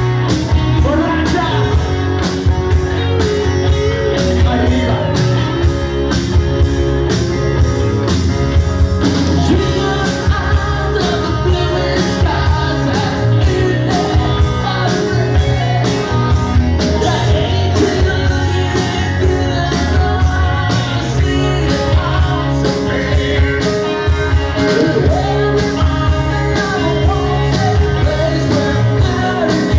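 Live hard rock band playing: distorted electric guitars over bass and a steady drum beat.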